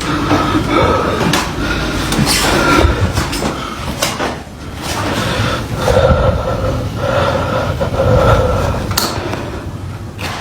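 Irregular loud bangs and knocks, one after another, over a continuous rumbling noise.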